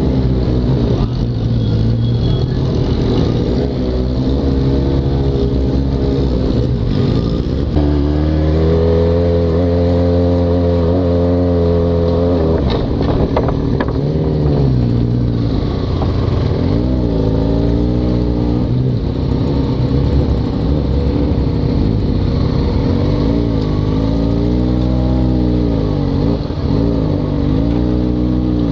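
Yamaha XJ6's inline-four engine with a loud aftermarket exhaust, ridden at low speed. Its pitch holds steady for a few seconds about a third of the way in, then dips and rises several times in the second half as the throttle is eased off and opened again.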